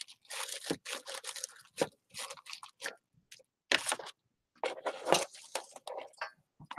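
Paper roses rustling and crinkling under the fingers as they are pressed and shifted, in short, irregular scrunches with brief silent gaps.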